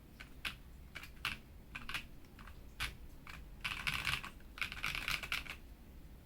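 Ikki68 Aurora mechanical keyboard with stock Auralite switches, an aluminium plate and ePBT keycaps, its keys pressed one at a time at first and then in two quick flurries of clicks past the middle.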